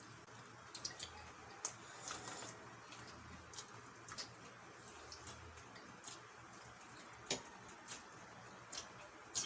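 Quiet eating sounds: scattered small wet clicks and smacks of mouths chewing, with a couple of sharper clicks in the second half.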